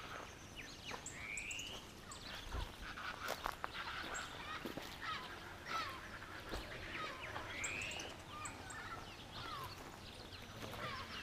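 A chorus of several wild birds calling over a background hiss, with many short chirps and whistled notes from different birds. A rising buzzy note sounds twice, about a second in and again near eight seconds.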